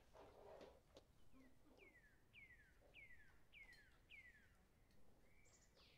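Faint bird call: a run of about six short whistled notes, each sliding down in pitch, about two a second, over near silence, with a brief soft scrape at the very start.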